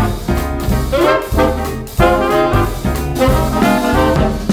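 Upbeat swing-style background music with brass and a steady beat.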